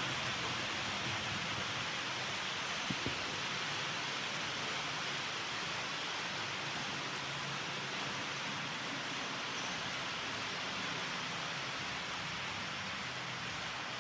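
Model freight trains running on the layout: a steady whirring hiss of wheels on rail and motors, with two light clicks about three seconds in.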